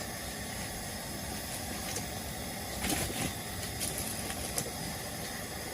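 Steady hiss of a camping gas stove burner running under a pan, with a few light clinks of cookware about three and four and a half seconds in.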